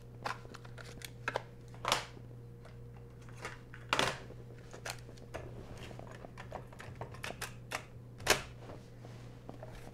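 Scattered sharp clicks and taps of hard plastic: a cassette case being handled and opened and the tape fitted into a portable cassette recorder, with the loudest click about eight seconds in.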